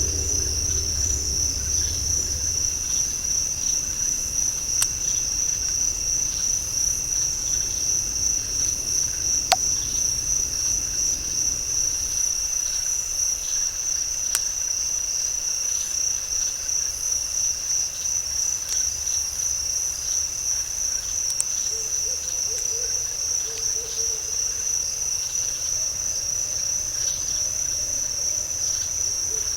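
Night insect chorus in a swamp: a steady, high, rapidly pulsing trill that runs throughout. A few faint sharp clicks sound about 5, 10 and 14 seconds in.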